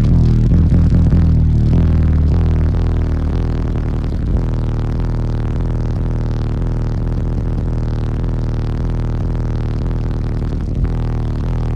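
Bass-heavy rap music played loud through a wall of nine Fi Team NEO 12-inch subwoofers, the sound mostly a steady, sustained low bass drone with little above it.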